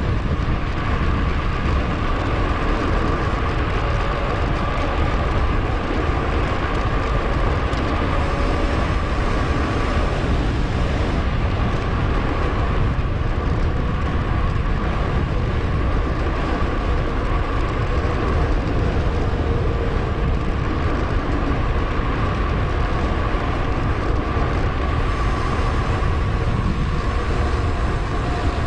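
Steady rushing of wind on an action-camera microphone, mixed with the hum of a mountain bike's tyres rolling on the road, with a faint steady whine running through it.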